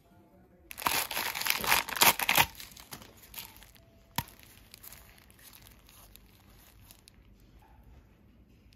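Thin plastic crinkling and rustling under gloved hands, loudest for the first couple of seconds, then softer crackles, with one sharp click about four seconds in.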